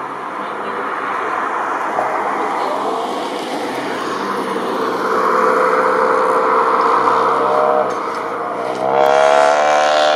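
Boeing 787 airliner on final approach: a steady jet engine roar that grows louder over several seconds. Near the end a louder engine sound rises in pitch, then cuts off abruptly.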